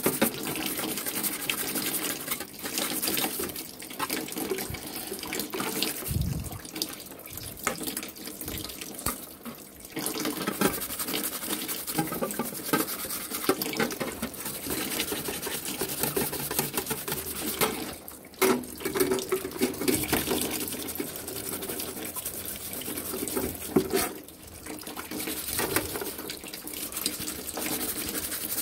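Bristle brush scrubbing soapy metal fan blades over a basin of sudsy water, with water splashing and dripping as the blades are dipped and lifted. A few sharp knocks stand out, about a third and again about four-fifths of the way through.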